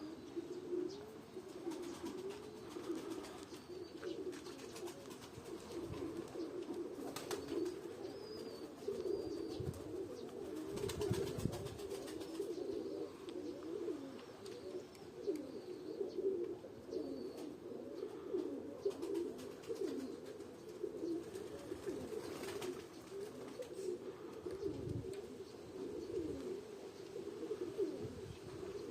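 Many pigeons cooing at once, a continuous chorus of overlapping coos.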